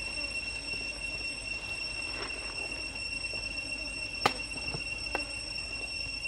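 Steady high-pitched drone of cicadas, an unbroken whine. A single sharp click comes a little over four seconds in, with a fainter one about a second later.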